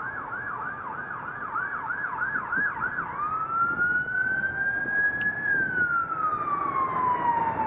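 Emergency vehicle siren: a rapid yelp of about three sweeps a second, switching about three seconds in to a slow wail that rises, falls, then starts rising again near the end.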